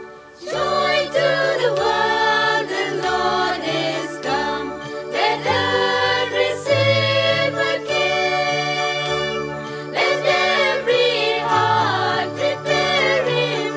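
Christmas carol with a group of voices singing over a steady bass accompaniment and jingle bells, starting about half a second in.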